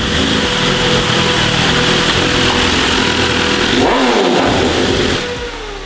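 BMW S1000RR's inline-four engine running on a wet road, under a steady hiss of wind and tyre spray. Near the end the engine note rises and falls, then the sound fades.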